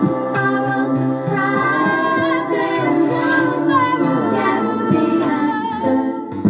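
A woman singing into a handheld microphone over her own layered vocal loops from a looper, with short percussive clicks repeating in the loop.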